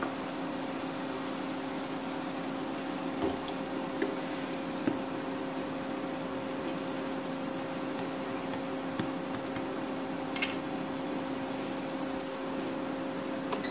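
A pancake frying softly in a nonstick pan over a steady hum, with a few light taps of a nylon spatula on the pan.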